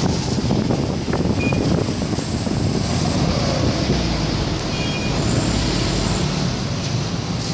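Steady outdoor street noise, heavy in the low end, with wind on the microphone. A couple of faint short high tones sound about a second in and near the middle.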